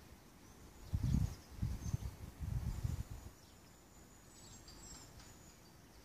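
Faint, high chirps from European goldfinches in the trees. Low rumbling noise on the microphone comes in bursts over the first half.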